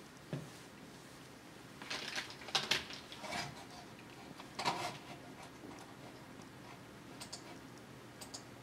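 Scattered clicks and taps of keys on a computer keyboard, a cluster about two to three seconds in, another near five seconds, and a few light ones near the end.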